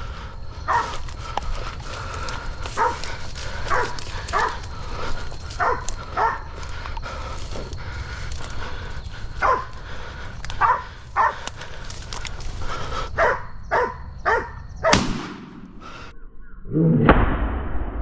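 Hog-hunting dogs barking in single, irregular barks, baying at a wild hog. Near the end there is a sharp crack, then a louder, longer burst of noise.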